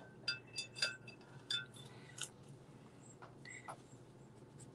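A few light clinks and taps of small hard art supplies being handled, some ringing briefly at the same pitch. They come mostly in the first two seconds, with a couple of fainter ones about three seconds in.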